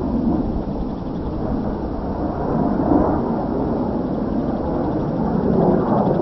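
Distant jet rumble from a Kawasaki T-4 trainer's twin turbofan engines as the smoke-trailing jet flies across the sky. It is a steady, low, rough roar that swells about halfway through and again near the end.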